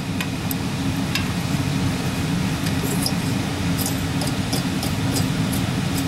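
Steady low mechanical hum, with a few faint light clicks of a small engine's old valve being turned and rattled in its guide.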